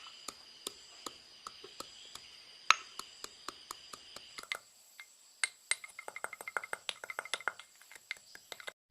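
Black peppercorns being pounded by hand into a coarse powder in a vessel: sharp clinking strikes, two or three a second at first, quickening to about five or six a second from about halfway.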